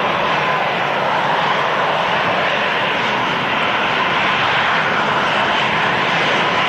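Emirates Airbus A380-800's four jet engines at departure thrust: a steady, loud roar with a faint steady whine running through it.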